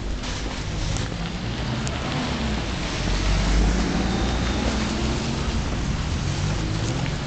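Street traffic on a snowy, slushy road: a steady hiss over a low rumble that swells about three seconds in as a vehicle passes.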